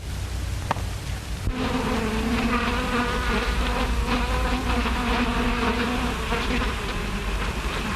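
Bees buzzing, a film sound effect: a steady, slightly wavering buzz that starts about one and a half seconds in. It sits over the hum and hiss of an early sound-film soundtrack.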